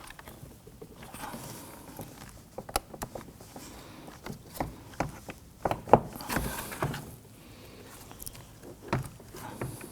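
Irregular plastic clicks and light knocks as the door handle's release cables are worked into place and their ends snapped into the notches, the loudest click about six seconds in.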